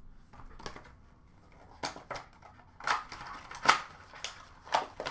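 Hard plastic trading-card cases and packs being handled and set down: a string of sharp plastic clicks and taps, the loudest about three and a half seconds in, with a little wrapper rustle between them.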